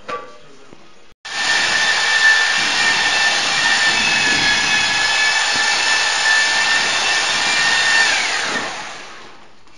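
Electric drill with a paddle mixer running steadily in a bucket of tile adhesive, a loud motor whine over the churn of the mix. It comes in about a second in, and near the end the whine falls in pitch as the drill winds down and stops.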